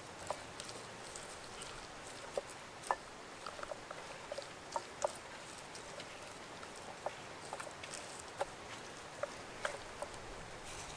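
Fingers pressing and rubbing chopped chili seasoning paste into raw, scored pig ears, making soft, irregular wet clicks and squelches over a steady faint hiss.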